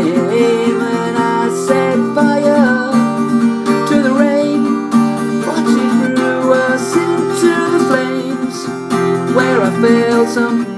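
Acoustic guitar strumming chords in an instrumental passage of a pop song, with a few gliding melodic notes over the chords.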